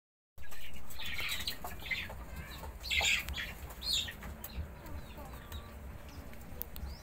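A few short, high-pitched animal calls or squeals, bunched in the first four seconds, over a steady low rumble.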